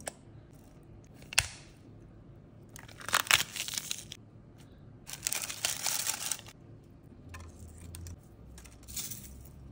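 Vegetables being handled and dropped into a stainless steel stockpot: a sharp knock about a second in, then two spells of crunching and rustling as celery stalks and leaves are broken apart by hand, and a shorter rustle near the end.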